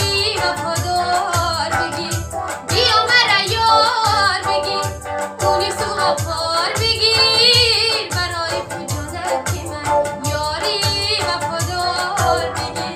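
A woman sings a Tajik song with vibrato-laden, melismatic phrases, accompanied by an electronic keyboard that carries the melody and chords over a steady programmed drum beat.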